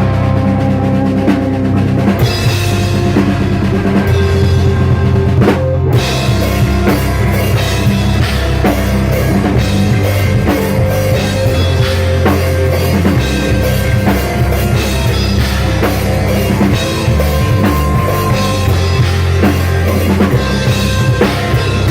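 A band playing a song, with a drum kit prominent (bass drum and snare) over a strong, steady bass.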